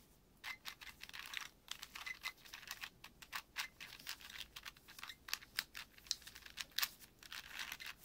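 4x4x4 Rubik's cube (Rubik's Revenge) being turned quickly by hand. The plastic layers make a rapid, irregular run of clicks and clacks as a corner-solving algorithm is worked through.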